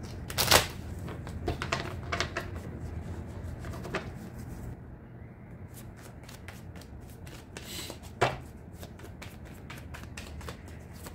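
Deck of tarot cards being shuffled by hand: a steady patter of quick card clicks, with louder snaps about half a second in and again about eight seconds in.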